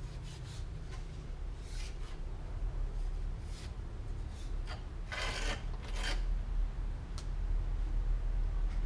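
Scraping and rubbing by hand on the hardened cement roof of a model house, in a series of short strokes; the longest and loudest comes about five seconds in, with a sharp click near the seven-second mark. A steady low hum runs underneath.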